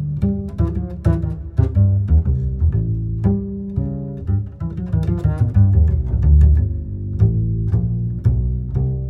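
Background music: plucked and bowed low strings, double bass and cello, playing quick notes with a steady pulse.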